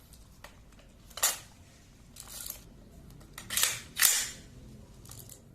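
Pindad SS1 airsoft replica rifle firing single shots: a handful of sharp cracks at uneven intervals, the loudest about a second in and a pair near four seconds in, with fainter ones between.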